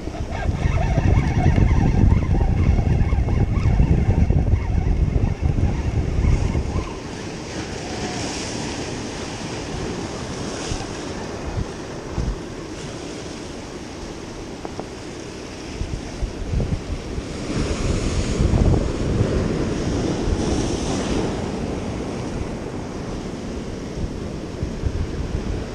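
Ocean surf breaking and washing over jetty rocks, with wind buffeting the microphone. The wind rumble is heaviest for the first several seconds, and a larger wave washes in about two-thirds of the way through.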